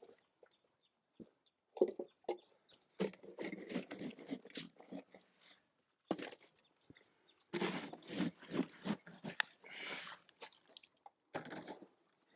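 Berkshire hogs eating, chewing their feed in irregular bouts of noise with short pauses between them.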